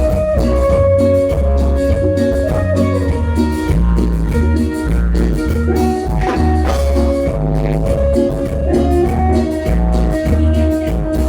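Live band playing an instrumental passage: a held, sustained lead melody over a steady bass line and drums.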